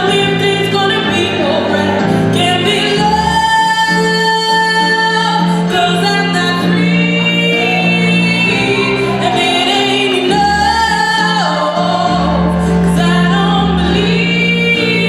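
A woman singing a slow song, holding long notes that waver, over sustained instrumental accompaniment.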